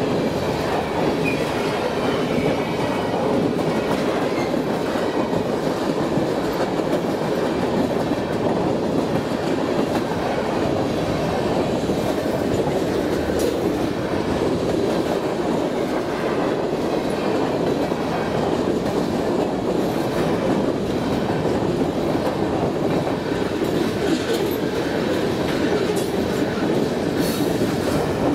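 Freight cars of a passing train rolling by on the rails: a steady rumble of wheels on track, with sharp clacks of wheels over rail joints, more frequent in the second half.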